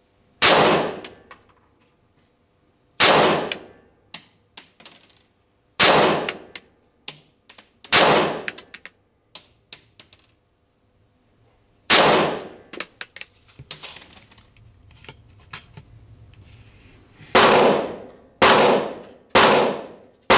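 Pistol shots fired one at a time, about nine, each with a ringing echo. Four come a few seconds apart, then one after a pause, then three about a second apart near the end. Lighter clicks and clinks fall between the shots.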